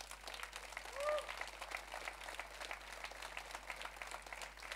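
Audience applauding, a steady patter of many hands clapping, with one brief voice-like whoop about a second in.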